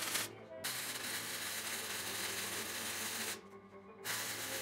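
Electric arc welding on steel: a steady crackling sizzle in three runs, the arc stopping briefly just after the start and again for about half a second past three seconds in.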